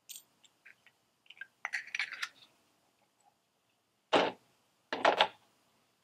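A coin handled on a rock slab: a run of light metallic clicks and taps, then two louder short scrapes, one about four seconds in and one about five seconds in.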